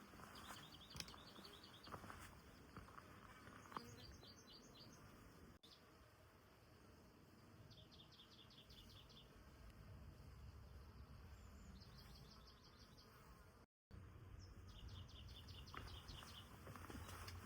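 Faint outdoor ambience with a high, rapid trilling call, about a second long, repeated five times at intervals of three to four seconds.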